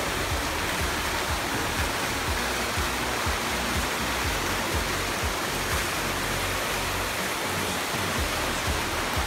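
Fountain water jets spouting and splashing steadily into a pool basin, a constant rushing sound.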